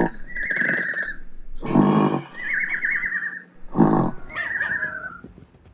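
Snoring in a steady cycle: a rough snorting breath in, then a wavering whistle on the breath out, repeated about three times.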